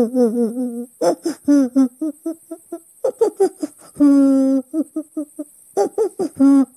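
A girl's voice sobbing and wailing in short, rapid pitched cries, with a longer held wail about four seconds in and another near the end.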